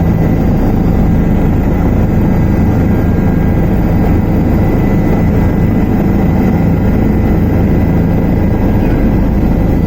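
Helicopter engine and rotor running steadily: a loud, continuous low rumble with a faint steady whine above it.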